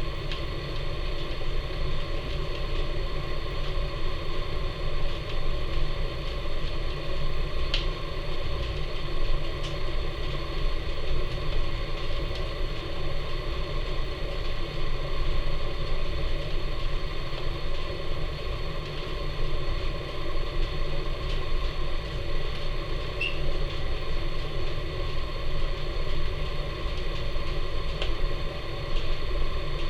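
Wood fire burning in the firebox of a Napoleon model 150 wood-fired furnace: a steady rumbling draft, with the ash pan door open for full draft, and a few faint crackles.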